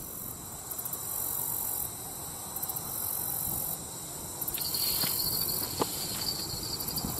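Insects chirping in high pulsing trills that come and go every second or two, over steady wind noise on the microphone. A brief higher buzz comes in about four and a half seconds in.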